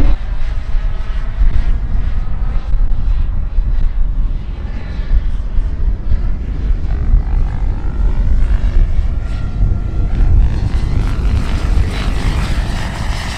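Turbine-powered scale model Aérospatiale Gazelle helicopter (Jakadofsky Pro 6000 turbine) in flight: a faint steady turbine whine with rotor wash, louder near the end as it comes closer. Heavy gusty wind rumbles on the microphone throughout.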